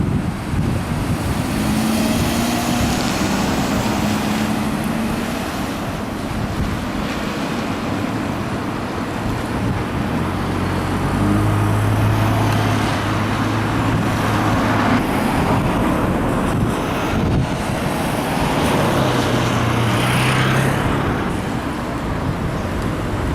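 Wind rushing over the microphone while road traffic passes. Engine hums from passing vehicles rise and fade about halfway through and again near the end.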